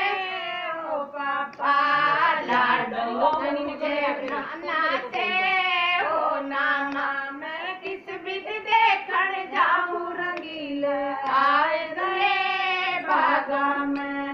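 Women singing a Haryanvi folk song (lok geet) unaccompanied, in long held notes that bend up and down.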